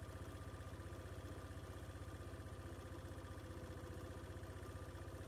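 A vehicle engine idling steadily, with an even low throb.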